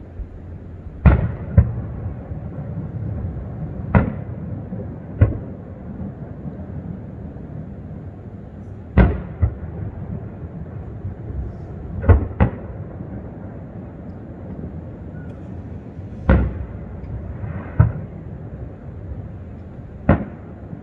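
Aerial fireworks shells bursting at a distance: about ten sharp booms at uneven intervals, several in quick pairs, each trailing off in an echo across the lake over a steady low background rumble.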